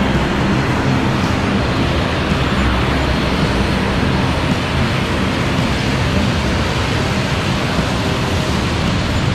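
Steady engine and airflow drone inside an airliner cabin in flight, an even, unbroken roar.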